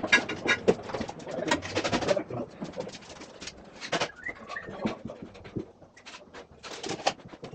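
Irregular clicks and knocks from hand work with tools and metal conduit on a concrete floor.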